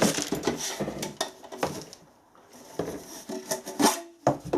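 Small metal fittings (hose clips, nuts and bolts) clinking and clattering as they are handled, a series of light irregular knocks with a brief metallic ring near the end.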